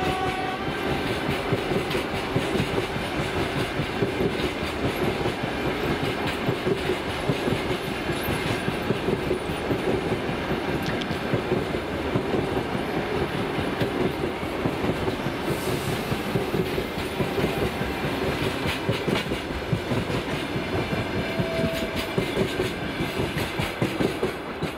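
Passenger coaches of a train rolling past close by at speed, their wheels clattering over the rail joints in a fast, steady clickety-clack. A horn sounds briefly at the start, and the clatter falls away as the last coach passes at the end.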